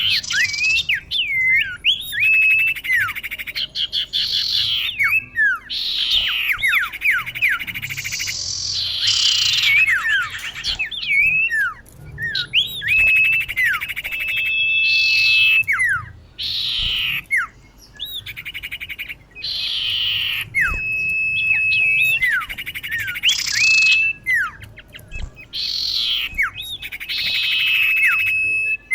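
Female common iora calling: clear down-slurred whistles and long level whistled notes alternating with harsh buzzy rasps, in repeated phrases.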